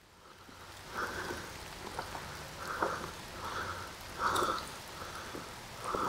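Steady light rain falling, with soft rubbing sounds roughly once a second.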